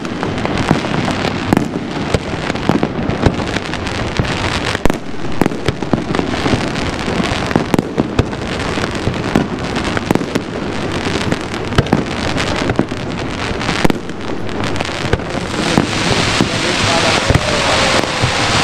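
Fireworks display going off: many irregular sharp bangs from bursting shells over a continuous crackling hiss.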